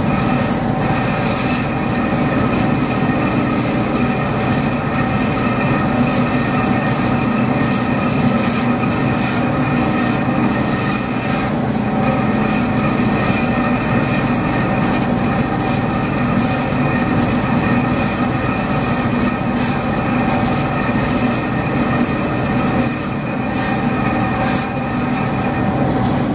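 DoAll vertical bandsaw cutting an aluminium plate: a steady run with an even metallic whine and rasp of the blade in the cut.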